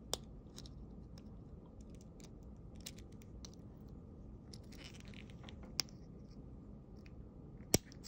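Thin metal tool scraping and ticking against a deadbolt lock cylinder while prying at its stubborn top plate, with three sharp metallic clicks, the loudest near the end.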